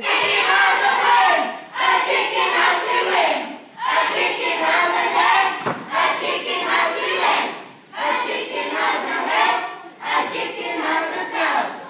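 A large group of children chanting together, loud and in unison, in phrases of about two seconds with short breaks between them.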